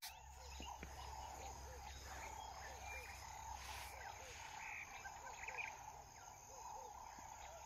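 Faint outdoor wildlife ambience: a steady insect drone, small birds chirping, and a short low call repeated in pairs about once a second. Under it there is a soft low rumble that eases about five seconds in.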